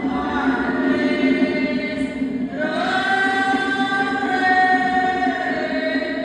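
A group of voices singing a bunde, a Colombian Pacific devotional chant, in long held notes; the voices break off briefly about two and a half seconds in and come back on a higher note.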